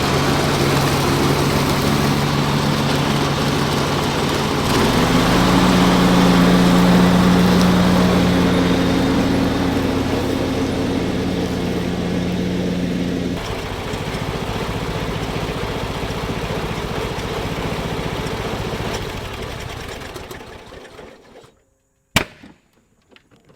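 Husqvarna YTH21K46 riding lawn mower engine running on a test after a blade-engagement cable replacement. It gets louder and higher about five seconds in, drops back about thirteen seconds in, then winds down and stops, with a single click just after.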